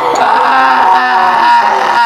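Drawn-out, pitched vocal cries, a reaction to the burning heat of super-spicy instant noodles just tasted.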